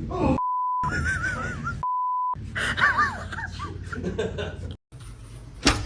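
Two flat, steady censor bleeps, each about half a second long, blanking out words, amid breathless laughing and gasping. A brief sharp crack near the end.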